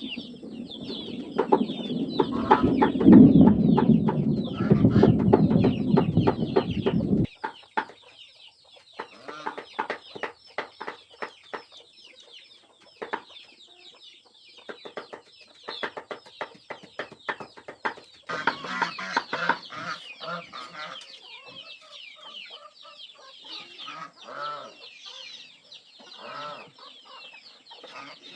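Chickens clucking. For about the first seven seconds a loud low noise lies under them and cuts off suddenly; after that come many quick, sharp taps among the clucks.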